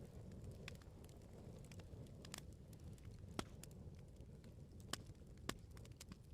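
Wood fire burning with a low steady rumble and scattered sharp pops and crackles, three louder snaps in the second half.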